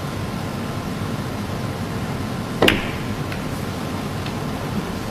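One sharp click of a snooker shot, cue and balls striking, about two and a half seconds in, followed by a couple of faint ticks, over a steady hiss of arena and broadcast noise.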